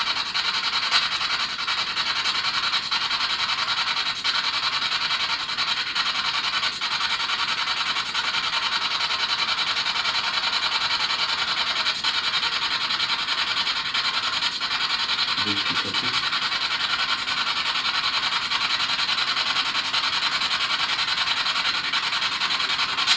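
Steady hiss of static with faint scattered clicks, and a short voice-like fragment about fifteen and a half seconds in.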